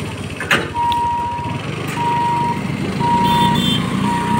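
Level-crossing boom barrier's warning beeper sounding a steady high beep about once a second as the gate opens, over the running of waiting motorcycle engines.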